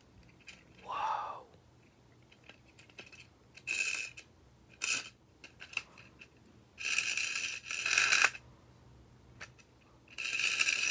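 Hard plastic toy parts of a Beyblade Burst launcher and top being handled: scattered clicks, then short rattling, whirring bursts, two longer ones lasting about a second and a half near the middle and at the end.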